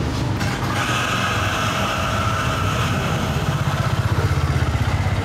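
A motorbike engine running close by, a steady low, fast-pulsing hum that grows a little louder toward the end.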